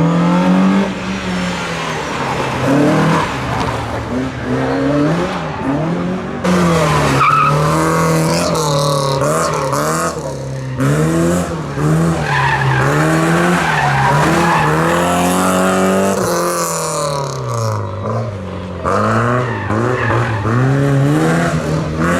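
Historic rally cars driven hard, engines revving up and dropping back again and again as they are worked through corners and gear changes, with tyres skidding and squealing.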